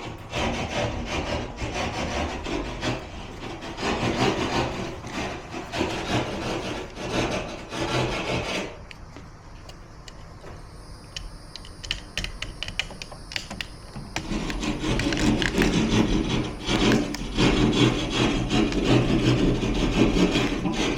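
Repeated scraping and rasping strokes against drywall at a recessed-light ceiling cutout that is too tight for the fixture, with a quieter spell of light clicks midway.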